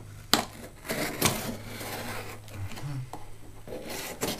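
A cardboard shipping box being handled while its packing tape is cut open: a few sharp clicks and knocks, with scraping and rubbing of tape and cardboard in between.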